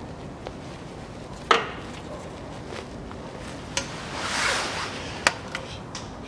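Rubber breather hose being worked back onto its fitting on a Land Rover Discovery 3 front differential by a gloved hand. There is one sharp click about a second and a half in, two lighter ticks later, and a stretch of rubbing around the middle.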